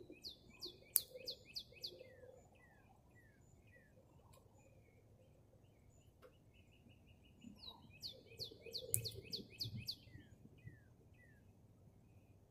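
A songbird singing two phrases about eight seconds apart, each a quick run of high descending notes followed by a few slower, lower falling chirps. A few faint clicks are also heard.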